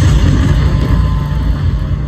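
Loud, deep rumbling sound effect from the sound-and-light show's loudspeakers, with a wash of noise above it.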